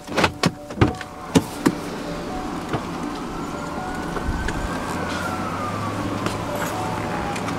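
Sounds inside a car in the rain: a handful of sharp taps in the first two seconds, then a faint whine that rises and falls in pitch over about four seconds, over a low steady hum.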